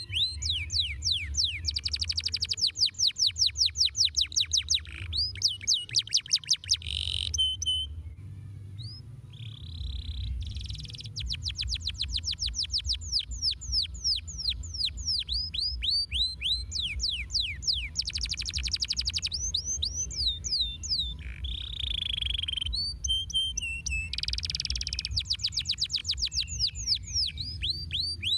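Domestic canary singing: long fast trills of sharp falling notes, phrase after phrase with short breaks, some phrases tightening into dense rolls. A steady low rumble runs underneath.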